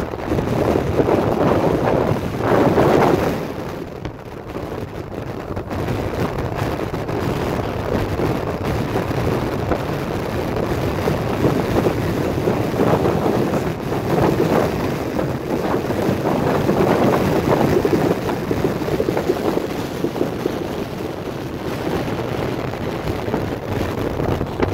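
Strong gusty storm wind buffeting the microphone, a low rumbling rush that swells and eases in gusts, loudest about two to three seconds in and again around twelve to eighteen seconds in.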